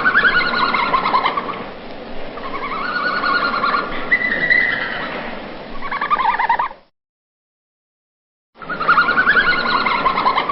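An animal calling: runs of rapid, pulsed calls that rise and fall in pitch. They stop about seven seconds in and, after nearly two seconds of silence, start again.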